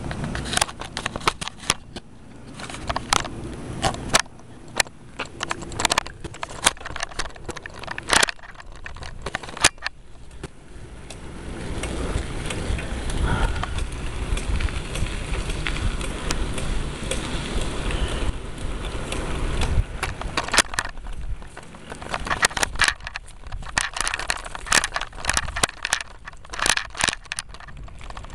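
Rattling, clicking and knocking from a bicycle ride, the camera being jolted over the road. A steadier rushing rumble fills several seconds in the middle.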